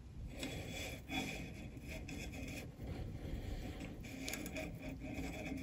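Faint soft scraping and handling as thread is drawn by hand through the chain looper of a coverstitch machine, over a low steady hum.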